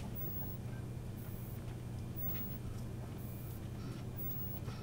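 Quiet room tone with a steady low hum and a few faint small ticks.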